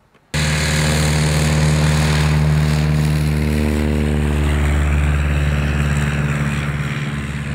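Propeller aircraft engine running at steady high power, loud, with airflow hiss. It cuts in abruptly and eases slightly near the end.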